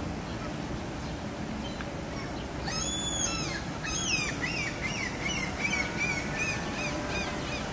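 Birds calling: a few loud, sharp calls about three seconds in, then a quick run of short repeated chirps, about three a second. A steady low hum of background city noise runs underneath.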